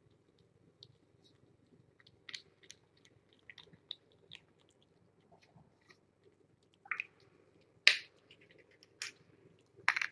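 Kittens eating wet cat food off a plate: soft, irregular chewing and licking clicks, with a few sharper, louder clicks in the second half, the loudest about eight seconds in.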